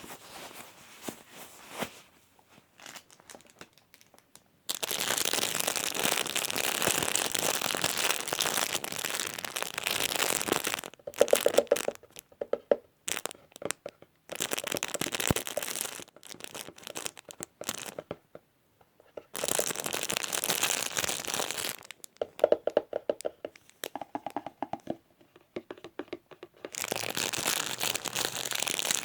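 Crinkly material being crumpled and handled close to the microphone for ASMR, in several long stretches of dense crackling with short pauses between them.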